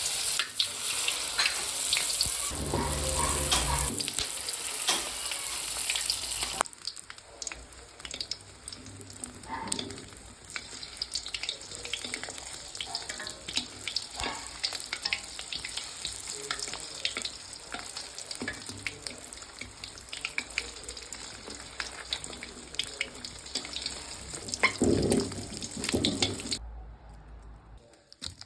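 Steady crackling sizzle of food frying in a pan. It changes abruptly about six and a half seconds in, becoming quieter, and stops shortly before the end.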